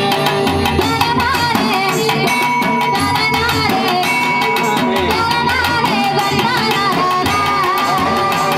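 Live Tamil folk band music: a wavering melody line over a steady barrel-drum rhythm, possibly with singing.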